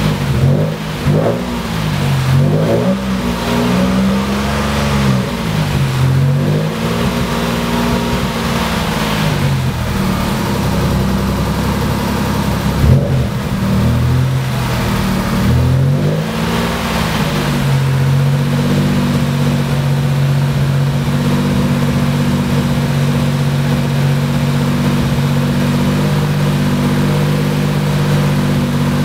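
Turbocharged Mitsubishi 6G74 3.5-litre V6 in a Galant, heard from inside the cabin, revved in a series of throttle blips that rise and fall in pitch, then settling to a steady idle about two-thirds of the way in.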